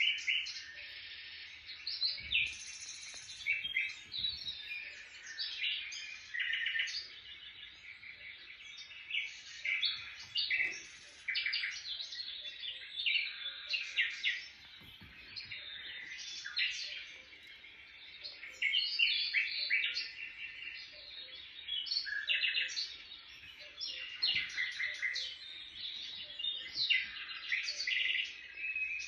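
Small songbirds chirping and twittering without a break: many quick high chirps and short trills overlapping one another.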